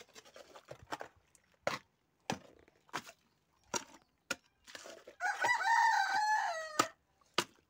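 A rooster crows once, a long call that drops in pitch at its end, about five seconds in. Before it, a hand tool knocks sharply and unevenly, roughly once a second, against stones and wet soil in a foundation trench.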